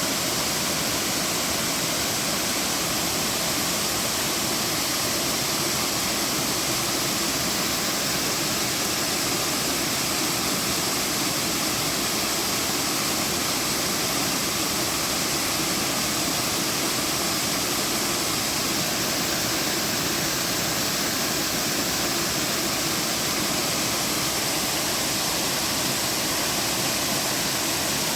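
Waterfall: water falling and splashing in a steady, unbroken rush, strongest in the hiss.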